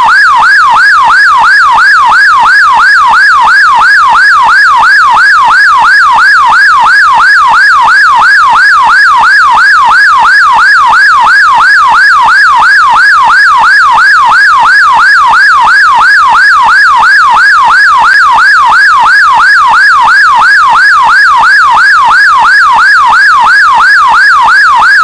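British emergency-vehicle electronic siren sounding its yelp tone: a loud, fast up-and-down sweep repeating about two and a half times a second without a break.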